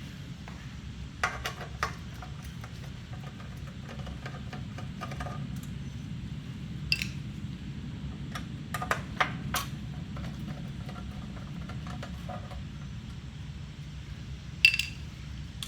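Scattered metal clinks and taps of hand tools working on a small Briggs & Stratton mower engine, over a steady low hum. A sharp clink near the end is the loudest.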